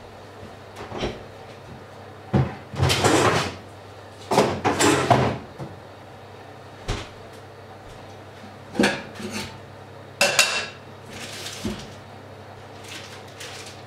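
Metal kitchenware and a wire rack being handled, with cupboard doors opening and closing: a series of separate clattering bursts, the loudest a few seconds in, over a steady low hum.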